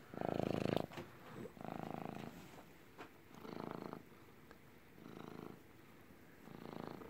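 Domestic cat purring. The purr swells and fades in five pulses, about one every one and a half to two seconds, and the first is the loudest.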